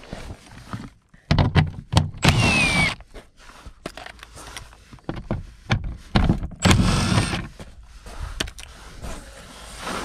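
Milwaukee M12 cordless impact driver whirring in several short bursts as it spins off the undertray's 10 mm nuts, one burst ending in a falling whine, with small clicks between the bursts.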